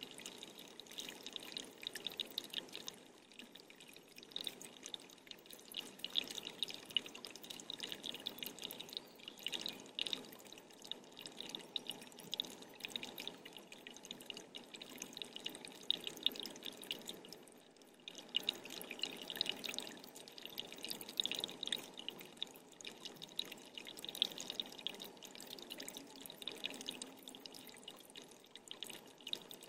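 Water dripping and trickling continuously, a dense run of small drips that swells and fades in loudness.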